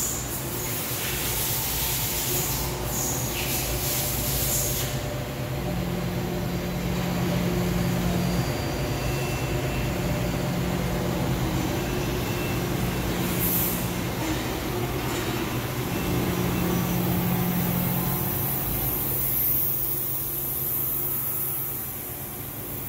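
EMAG VL-3 inverted CNC lathe running: a steady machine hum, with a higher tone that comes on and cuts out three times, and short hisses in the first few seconds and again about halfway.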